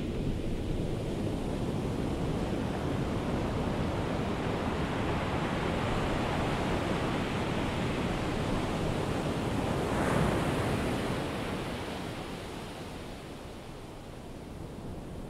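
Ocean surf washing onto a beach, a steady rush that swells as a wave breaks about ten seconds in and then eases off.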